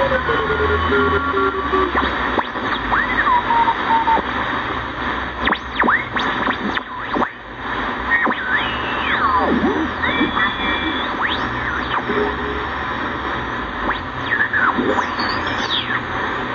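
KENTEC BCL-1 shortwave communications receiver being tuned across the band: a steady hiss of static with heterodyne whistles that glide up and down in pitch as signals pass through, and a few short clicks and crackles about halfway through.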